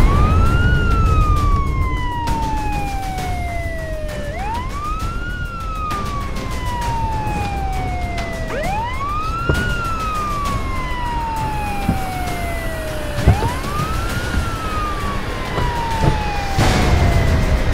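Police car siren wailing in a slow cycle, four times: each wail climbs quickly, then falls slowly over about four seconds, over a steady low vehicle rumble.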